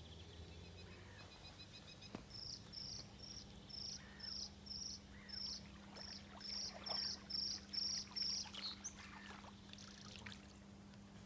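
A bird calling: a run of about a dozen short, high chirps, each falling in pitch, about two a second, then it stops. A faint steady low hum runs underneath.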